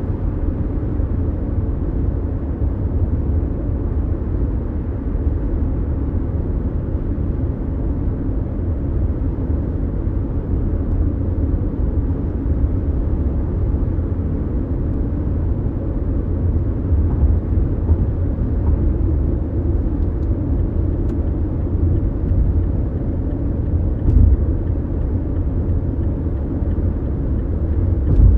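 Cabin sound of a Mazda CX-5 small SUV cruising on a highway: a steady low rumble of road and engine noise. A light bump is heard about 24 seconds in, and another near the end.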